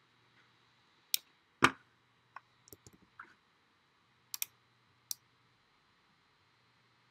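Computer mouse and keyboard clicks: about a dozen short, sharp clicks at irregular intervals. The loudest, heavier knock comes about one and a half seconds in, followed by a quick run of lighter clicks and a double click near the middle.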